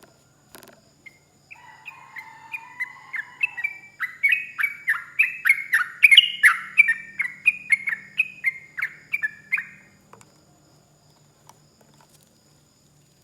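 Sooty-headed bulbul (trucuk) singing a long, rapid run of short falling notes, about three a second. The song builds in loudness, peaks in the middle and stops about ten seconds in.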